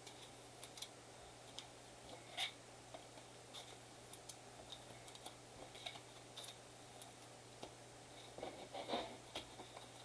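Faint scattered clicks and light rustles of trading cards and card packaging being handled, with a slightly louder patch of rustling about nine seconds in.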